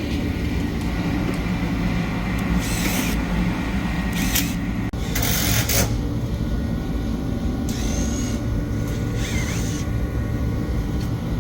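High-speed supply fan for a school cafeteria kitchen running: a steady drone with several hum tones, the fan noise that drew complaints and is being boxed in with sound-absorbing panels. A few short bursts of hiss break in over the middle stretch.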